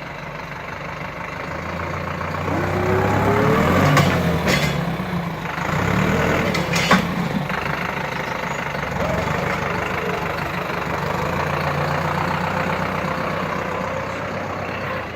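Deutz 4080E tractor's diesel engine running, revving up a couple of seconds in and then holding steady. A few sharp knocks or cracks come through in the middle.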